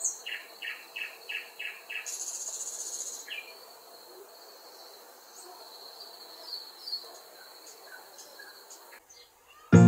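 Birds calling over a steady high insect-like tone: one call repeated six times in quick succession, about three a second, then a short buzzy high trill, with scattered faint chirps after. Music with bell-like notes starts right at the end.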